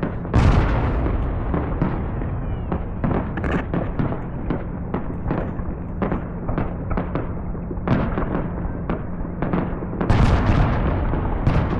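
Fireworks exploding in rapid succession, many sharp bangs and crackles overlapping. A heavy boom comes about half a second in, and a loud cluster of bangs near the end.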